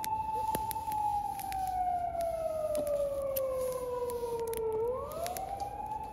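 Distant emergency-vehicle siren: a steady wail that slowly sinks in pitch for about four seconds, then quickly climbs back up and holds. Sharp crackles from a wood campfire pop through it.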